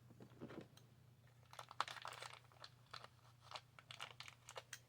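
Faint handling noise: many small clicks and crinkles of parts and plastic packaging being handled, over a steady low hum.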